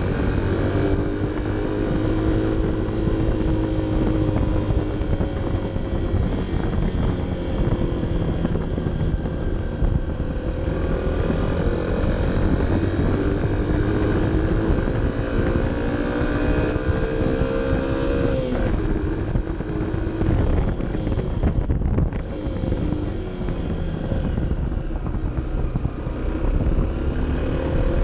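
Honda CB 125 F's small single-cylinder four-stroke engine, heard from an onboard camera, pulling up a mountain pass. The revs rise and fall slowly, then fall off sharply about 18 seconds in, as at a throttle lift or gear change, and build again.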